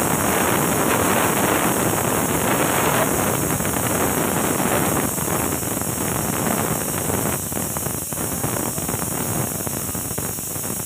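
A loud, steady rushing noise like air blowing over the microphone, with faint plastic-bag rustling through it.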